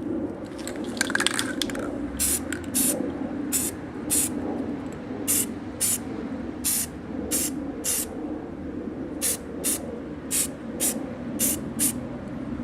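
Rust-Oleum aerosol spray paint can sprayed in short bursts: about fifteen quick hisses, mostly half a second to a second apart, starting about two seconds in.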